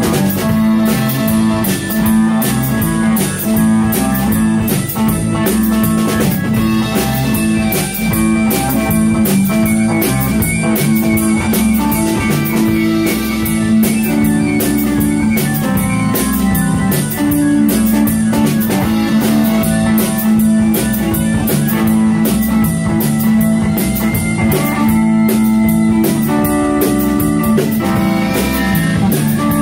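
Blues-rock band recording: electric guitar over a steady drum-kit beat, with no singing.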